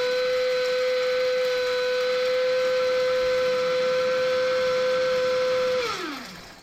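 A small electric motor running at a steady speed with a high whine, then switched off near the end, its pitch falling quickly as it spins down.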